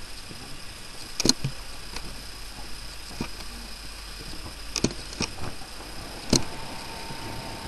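Handheld camcorder handling noise: a few sharp clicks and knocks over the camera's steady hiss, with a faint steady tone coming in after the last knock near the end.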